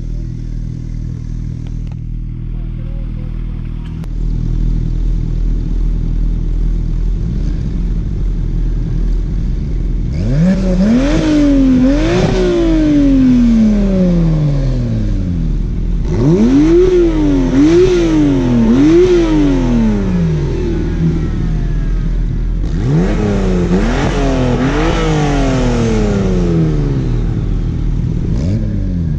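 Three Porsche 991.2 911s with twin-turbo flat-six engines idling, then free-revved one after another in three sets of two or three quick throttle blips, each rising sharply and falling back to idle. The cars are a Carrera T with Kline steel headers, 200-cell cats and muffler, a stock Carrera GTS, and a Carrera T with an Akrapovic titanium slip-on muffler, revved in Sport Plus mode without backfire pops.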